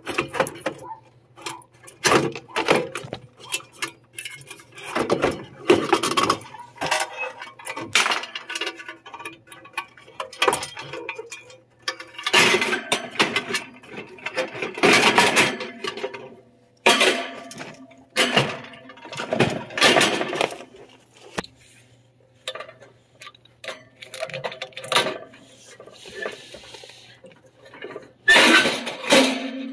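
Irregular clinks, clatter and scraping of metal and plastic parts being handled as a gas furnace's inducer motor assembly is pulled out and its wires and pressure-switch hose are disconnected, over a faint low hum.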